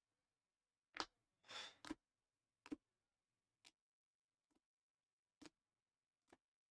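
Trading cards in clear plastic holders clicking against one another as they are flipped off a stack one at a time: faint sharp clicks about once a second, with a short sliding scrape just after the first.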